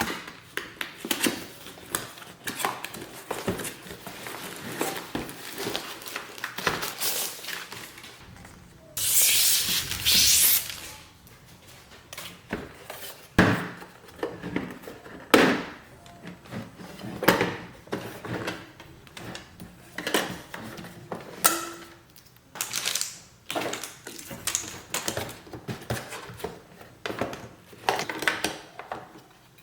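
A product box being opened and unpacked by hand: scattered knocks, taps and handling noises of cardboard and plastic packaging. About nine seconds in comes a louder rustle lasting around two seconds.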